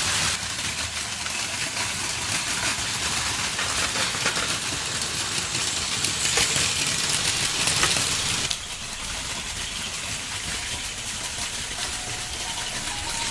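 Battery-powered Plarail Advance toy trains running on plastic track, a steady whirring and rattling of small motors and wheels. It drops a step in loudness about eight and a half seconds in.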